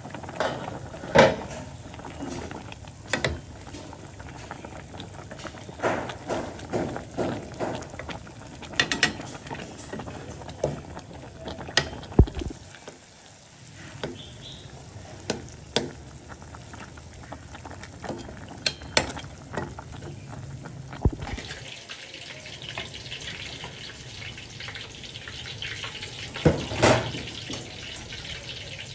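Kitchen clatter of utensils and cookware knocking, a sharp knock every second or so, then about three-quarters of the way through a steady sizzle starts as food begins frying in hot oil.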